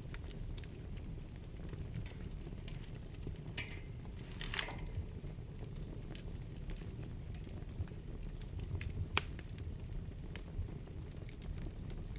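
Wood fire in a fireplace crackling over a steady low rumble of flames, with scattered sharp pops, a short denser flurry about four and a half seconds in and the loudest pop about nine seconds in.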